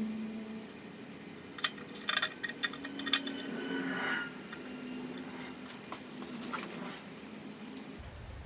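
Small metal hardware clinking: a quick, irregular cluster of sharp metallic clicks and clinks about two seconds in, over a faint steady hum.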